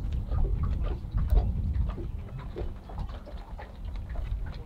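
Small tube of Sikaflex sealant being squeezed and worked under the edge of a solar panel: irregular small clicks and crackles from the tube and fingers, over a steady low rumble.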